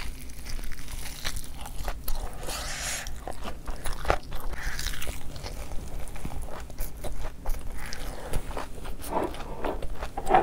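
Close-up mouth sounds of someone biting into and chewing crunchy food, with many irregular small crunches and clicks.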